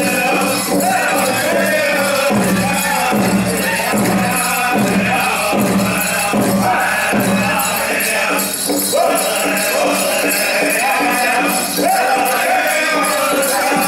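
Powwow drum group singing a contest song, voices in unison over a steady beat on the big drum, with bells on the dancers' regalia jingling in time.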